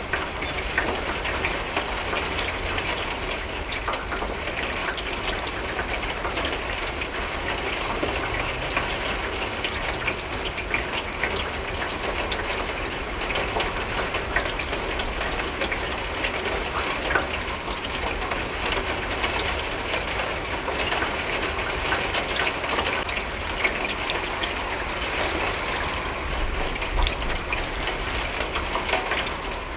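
Steady rain falling on a window: a dense, even patter of drops with a low rumble underneath.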